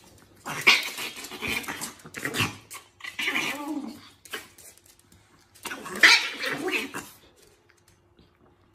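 Chihuahua growling in three rough bursts while guarding a piece of fruit from a cat. The growling stops about seven seconds in.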